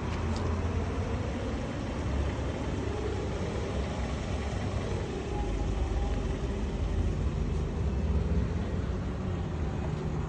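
A car engine running at idle, a steady low rumble.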